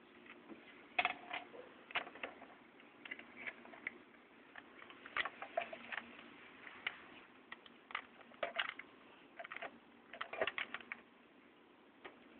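Irregular light clicks and taps, some single and some in quick clusters, over a faint steady hum.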